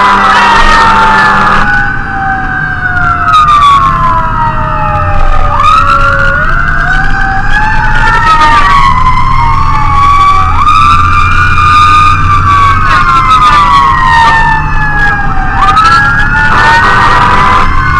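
Fire engine siren wailing on an emergency response: several siren tones sweep up and down at once, each long slow fall ending in a quick rise, over a steady low rumble.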